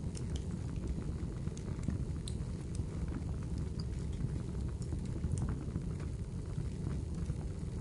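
Looped spooky ambience of rain and a crackling fire: a steady low rumble under scattered sharp crackles and ticks.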